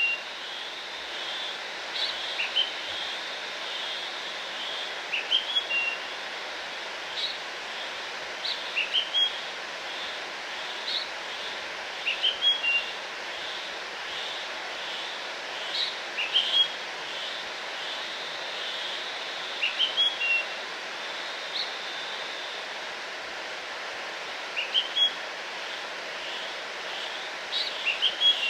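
Steady rush of a waterfall, with a bird repeating a short chirping phrase about every three to four seconds over it.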